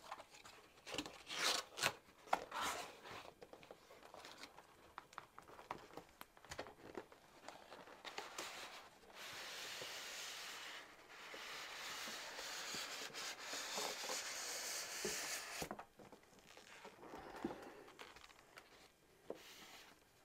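Packaging being opened by hand: a few sharp knocks and rustles in the first few seconds, then a long stretch of tearing and crinkling from about eight to sixteen seconds in, with a short break near eleven.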